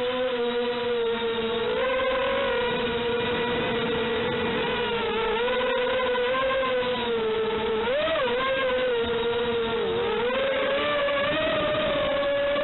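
FPV drone's electric motors whining steadily, the pitch wavering up and down with the throttle and jumping briefly about eight seconds in.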